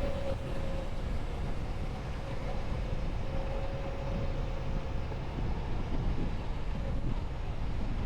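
Steady low rumble of a semi-truck driving, with a faint high whine that fades in and out.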